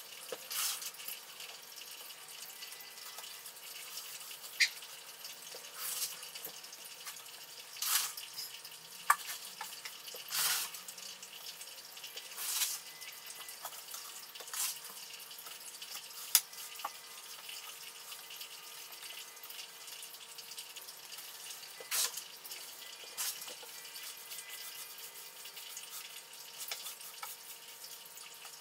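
Handfuls of wet, washed sand dropped and patted into an empty glass aquarium: irregular wet splats and pats, a dozen or so, with a few sharp clicks among them.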